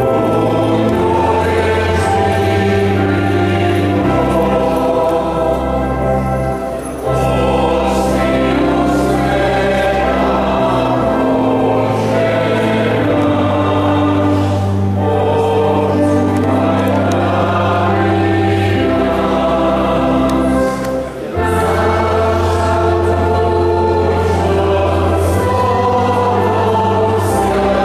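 A choir sings a hymn over sustained low instrumental notes. It comes in abruptly at the start and cuts off abruptly near the end.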